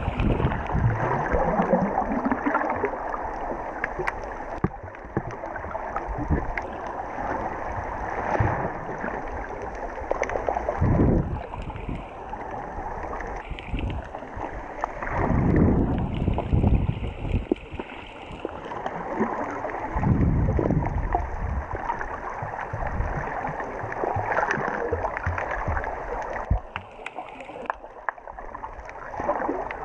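Muffled rushing and gurgling of water heard with the camera underwater, swelling louder several times.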